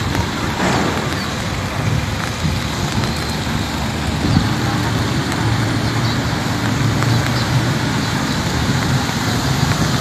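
Steady outdoor background noise of road traffic and wind, with a low rumble that swells about seven seconds in.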